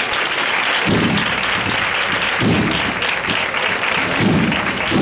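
Street crowd applauding a Holy Week procession float, a dense, steady clapping. Four low thuds sound beneath the applause.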